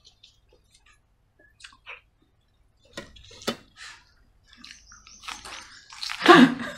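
Wet squelching and smacking of fingers mixing and scooping kadhi-soaked rice and eating it from the hand, with a few sharp clicks partway through. Near the end comes a louder short burst of voice.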